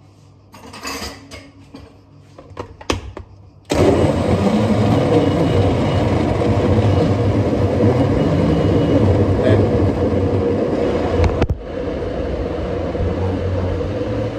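Countertop electric blender switched on about three and a half seconds in, after a few handling clicks, and running loudly with a steady motor hum as it purées apple slices and juice. Its blade base was unscrewed from the jug, so the fruit mix leaked out. Near the end the sound drops abruptly and carries on at a lower level.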